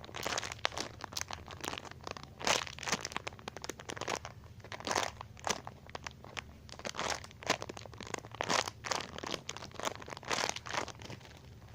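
Plastic packaging crinkling and crackling as it is handled, in irregular crackles throughout.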